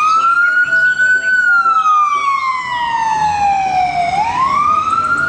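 Ambulance siren sounding a slow wail: the pitch rises for about a second, falls slowly for about three seconds, then rises again near the end, with low road and engine noise beneath.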